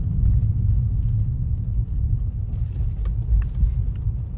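Car driving, heard from inside the cabin: a steady low rumble of engine and road noise, with a couple of faint ticks about three seconds in.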